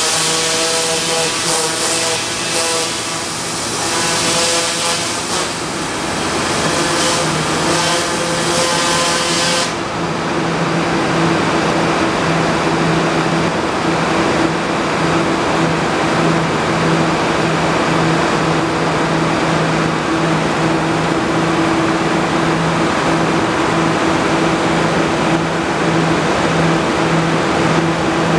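Ultra-high-pressure water jet stripping paint from steel: a loud, steady hiss of the jet over the constant drone of the high-pressure pump unit's engine. About ten seconds in the hiss cuts off sharply, and the steady engine hum goes on.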